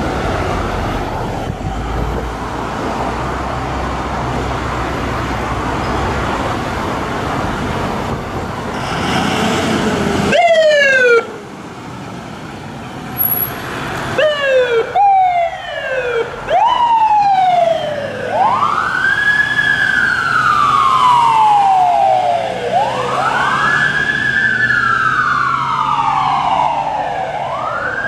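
Ambulance engine running as it pulls out. About ten seconds in, its electronic siren gives a few short falling whoops, then settles into a slow wail that rises and falls about every four and a half seconds.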